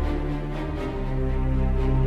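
Background music with held notes; the low notes change about halfway through.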